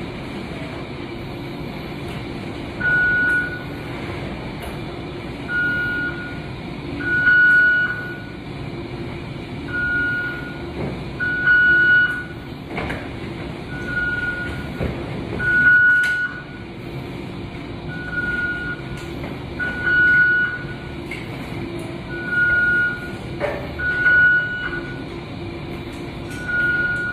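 Intensive care equipment alarm beeping: one steady high tone repeating in pairs, a softer beep then a louder one about a second and a half later, the pair coming round about every four seconds, over a steady background hum.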